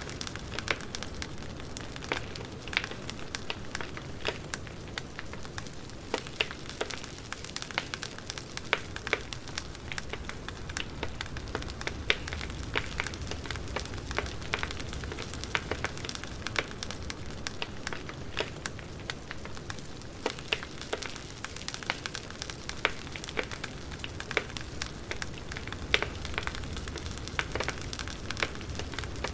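Campfire burning with steady crackling: many small irregular pops and snaps over a soft hiss and low rumble of flames, with a few louder pops.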